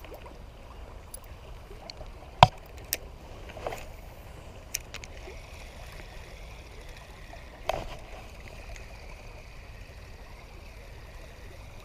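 Creek water flowing steadily, with a few sharp clicks and knocks scattered through it, the loudest about two and a half seconds in.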